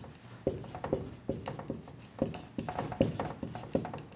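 Felt-tip marker writing on a whiteboard: a run of short strokes, about four a second, as words are lettered out.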